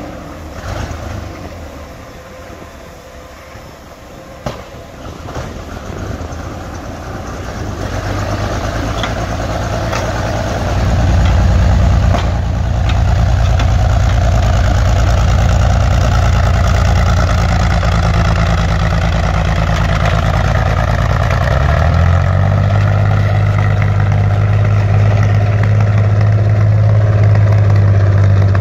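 Engine of a WWII German tank or tracked assault gun, growing louder over the first ten seconds and then running steadily with a deep, even note. About three quarters of the way through the revs rise and hold at a higher pitch.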